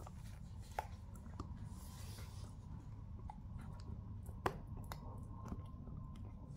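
A dog gnawing a hard stick-shaped chew treat held between its paws: scattered short clicks of teeth on the chew, the sharpest about two-thirds of the way through.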